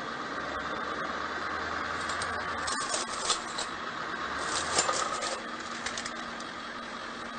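A truck's tyre rolls slowly over a titanium tube on pavement, the engine running low and steady. A few sharp clicks and crackles come about three seconds in and again near the five-second mark.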